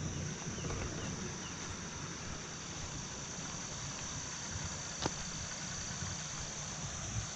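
A steady, high-pitched insect chorus over a low rumble, with a single small tick about five seconds in.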